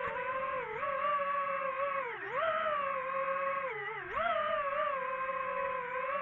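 DJI FPV drone's motors and propellers whining steadily, the pitch dipping and swooping back up several times as the throttle changes in flight.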